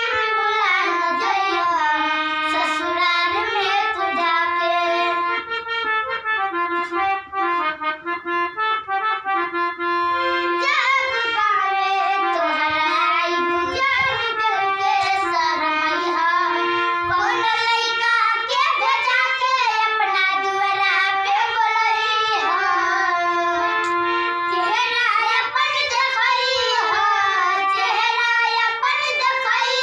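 Two girls singing a Bhojpuri jhareliya folk song to a harmonium, the instrument holding steady notes under their voices.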